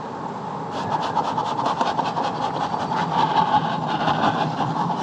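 Honeybees buzzing around an opened hive. About a second in, a fast, steady run of clicks or rattling starts up on top of the buzzing.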